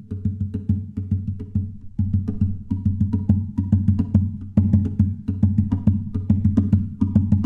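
Background music with a steady percussive beat: a low bass line and pitched notes over evenly spaced clicks, about three a second.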